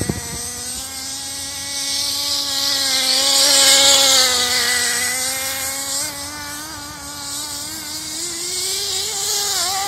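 Small two-stroke nitro (glow-fuel) engine of a radio-controlled buggy running at high revs with a buzzing whine. It is loudest about four seconds in as the car passes close, and revs up near the end.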